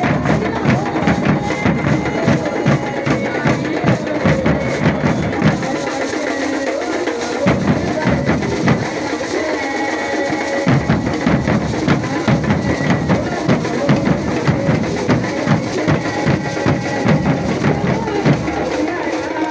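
A large ensemble of rope-tensioned wooden bass drums (alfaia-type) beaten with sticks in a driving marching rhythm, with lighter percussion clicking over it. The deep drums drop out twice for a second or two, about six and nine seconds in, then come back.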